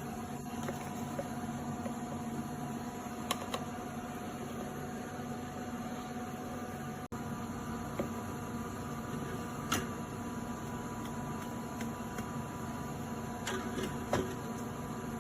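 Steady mechanical hum of running equipment or ventilation, with a few light clicks and taps.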